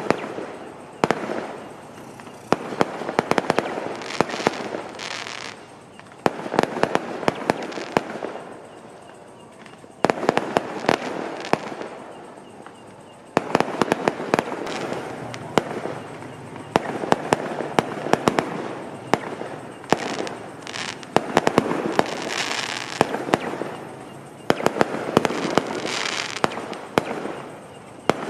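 Fireworks going off in rapid volleys of sharp bangs and dense crackling, with short lulls between the volleys.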